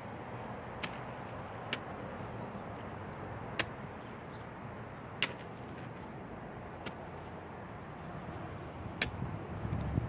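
Metal hand trowel digging through dry, clumpy garden soil, giving about six sharp clicks as the blade strikes hard dirt clods, with a louder scrape near the end. A steady low rumble sits underneath.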